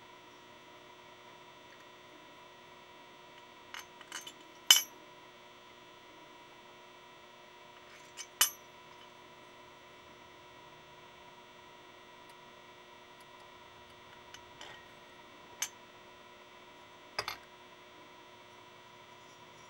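Scattered metallic clinks and taps as the Honda Hobbit moped engine's aluminium cylinder head is picked up, handled and set down onto the cylinder, the loudest just under five seconds in, over a faint steady hum.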